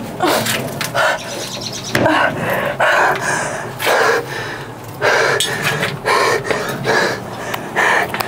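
A young woman's heavy, frantic panting, about one loud breath a second, under a steady low hum.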